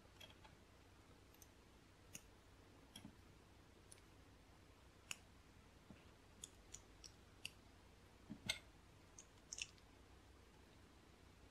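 Small plastic LEGO pieces clicking as they are handled and pressed together: about a dozen short, sharp clicks at uneven intervals, the loudest a close pair about eight and a half seconds in.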